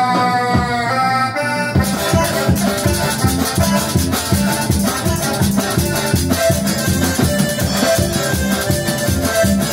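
Live band playing Latin dance music: a held chord slides down in pitch, then about two seconds in a steady dance beat kicks in and runs on.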